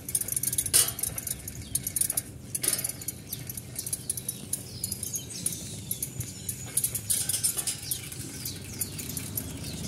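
Outdoor street ambience: irregular light clicks and scuffs, with a few faint chirps of small birds and a low steady rumble underneath.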